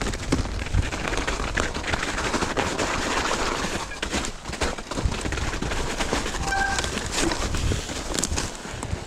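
Mountain bike rolling over a rough, snow-patched forest trail: tyres crunching through snow and over sticks, with many small rattling clicks and knocks from the bike and a low rumble underneath. A brief high squeak sounds about two-thirds of the way through.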